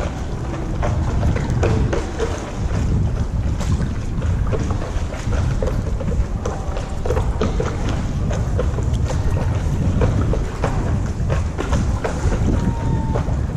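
Water splashing and lapping around a stand-up paddleboard as the paddle dips and pulls, many small splashes in an irregular run, over steady wind noise on the microphone.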